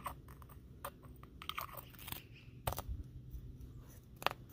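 Metal hub dust cap being pressed by hand into a BMW E30 front wheel hub: scattered clicks and gritty scrapes, with a sharper click about halfway through and another near the end.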